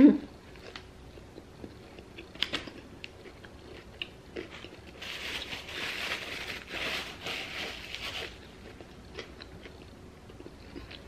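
A bite into a bacon cheese Whopper topped with crushed hot Cheetos, then close-up chewing with small crunches and mouth clicks. About five seconds in, a paper napkin rustles for about three seconds as hands are wiped.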